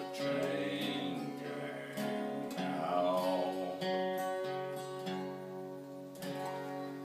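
Acoustic guitar strummed in chords, the instrumental close of a country song. A last strum about six seconds in is left to ring.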